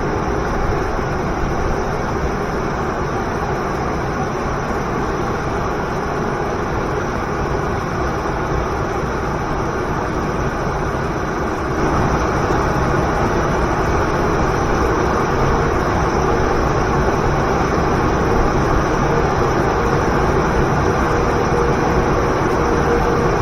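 Waterfall's steady rush of falling water, a dense even noise that gets a little louder about twelve seconds in, with faint steady tones underneath.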